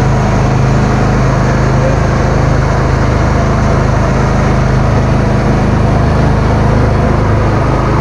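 A small river boat's motor running steadily underway, a constant low engine hum with water and wind noise over it.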